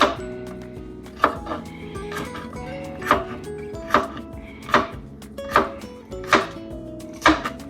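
Knife chopping on a cutting board: sharp knocks at a fairly even pace, a little under one a second, over background music.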